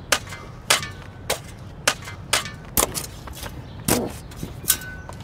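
Sneakered feet striking dirt and loose stones in an even series of sharp thuds, a little under two a second.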